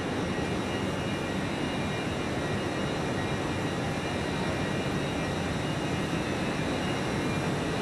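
Steady, even running noise of trains standing at the platforms of a big station train shed, with a few faint steady high whines over it.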